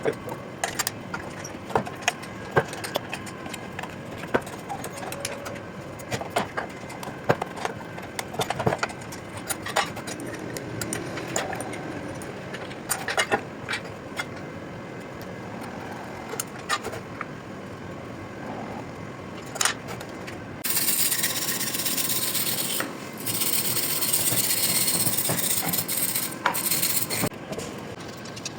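Metal parts and tools handled in a workshop, with irregular clicks, taps and knocks. About two-thirds of the way through, a loud steady hiss begins; it stops briefly once and then resumes.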